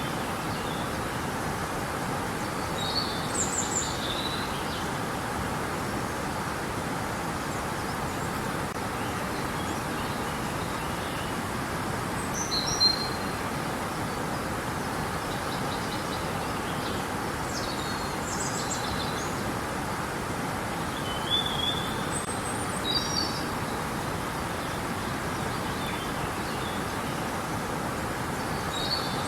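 Steady rushing of river water, with short bird chirps and calls breaking in every few seconds.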